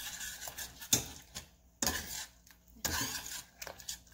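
A metal utensil scrapes and knocks against a saucepan as a thin sauce is stirred. There are about three sharp strokes with some scraping between them.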